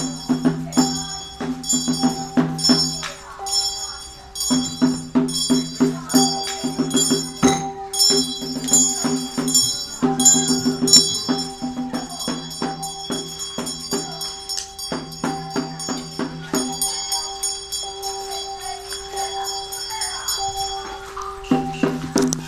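Traditional Chinese temple percussion playing: a fast, steady run of strikes with ringing metal tones and a jingling shimmer above them.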